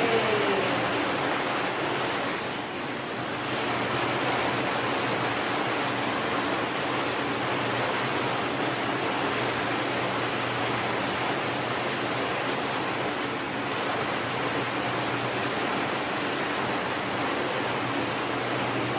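Water running steadily into a bath, an even rushing hiss with a slight dip about three seconds in.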